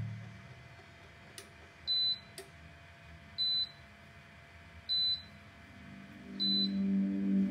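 Electronic beeping from an Oxone OX-157 smokeless grill: a short, high single-tone beep repeated four times, evenly spaced about a second and a half apart, with a couple of faint clicks near the start. Soft background music comes in near the end.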